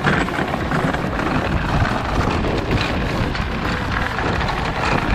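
Wind buffeting the microphone over the low rumble and rattle of a go-kart's small tyres rolling fast along a packed-earth path.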